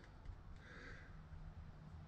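Near silence: only faint low background noise.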